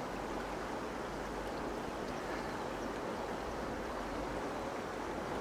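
Steady rush of a fast-flowing river.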